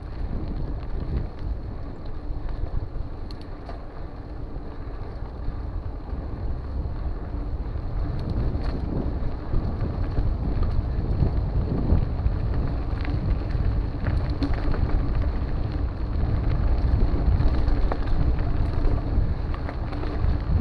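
Wind buffeting the microphone of a camera on a mountain bike ridden at speed over dirt trails, with a steady low rumble from the tyres and terrain and scattered clicks and rattles from the bike.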